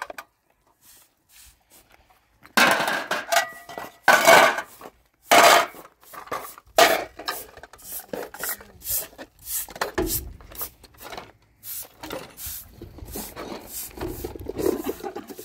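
Metal pots and dishes clattering and clinking as they are washed in a basin, with brief ringing from the metal, then a broom sweeping a concrete step in short, repeated strokes.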